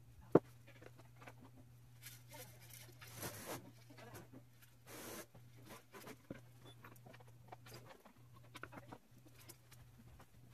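Sped-up handling noise of plywood speaker-cabinet panels being fitted: scattered quick clicks and knocks and a few short rustling scrapes, with one sharp click about half a second in, over a steady low hum.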